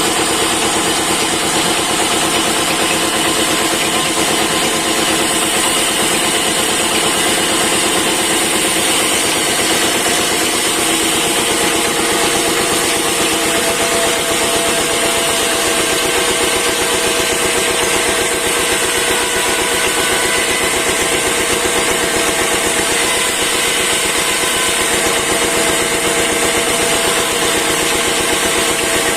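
A wood-cutting machine's motor running steadily, with a fast even pulse and a shift in its pitch about halfway through.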